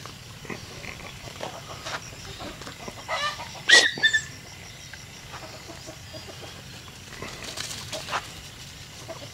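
A chicken gives a quick string of clucks, then a loud squawk and a short follow-up call, about three to four seconds in, over faint rustling in dry leaf litter.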